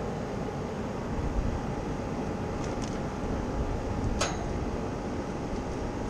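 Heat pump outdoor unit running steadily: compressor and condenser fan hum. There is a short sharp click about four seconds in.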